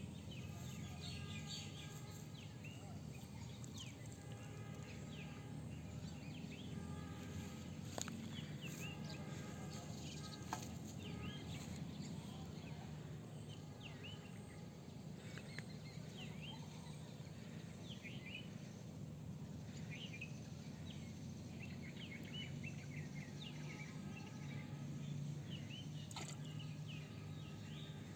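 Outdoor birdsong: many short bird chirps and calls throughout, over a steady low background hum.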